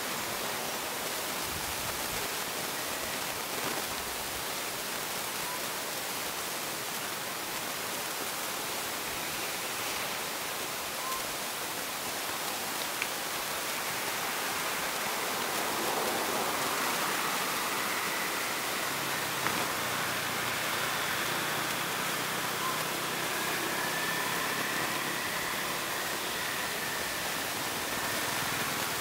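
Steady, even hiss of background ambience, with a few faint clicks. Faint thin high tones come in about two-thirds of the way through.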